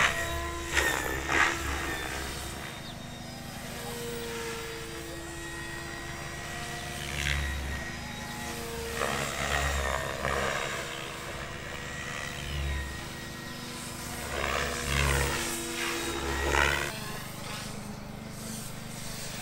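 Small electric RC helicopter's motor and rotor whine, bending up and down in pitch, with several louder swells as it flies.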